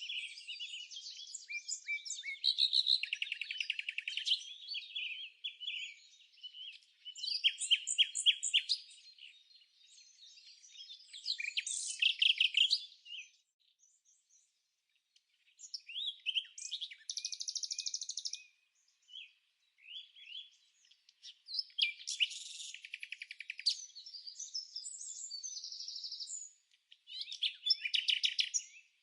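Songbirds singing: phrases of chirps and rapid trills, high-pitched, with short pauses between them.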